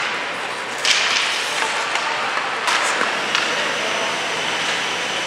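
Ice hockey practice on the rink: a steady hiss of skates scraping the ice, with a sharp clack about a second in and two more near the three-second mark.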